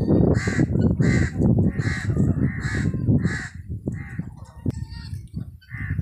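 Helmeted guineafowl giving harsh, rapidly repeated calls, about two a second, then a few more spaced out after about three and a half seconds.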